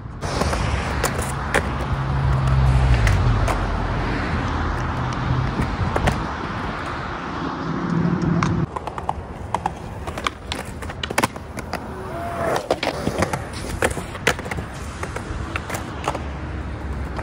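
Skateboard wheels rolling on a concrete sidewalk, with repeated sharp clacks of the board hitting the pavement and ledge, mostly in the second half. A car passes on the road in the first half.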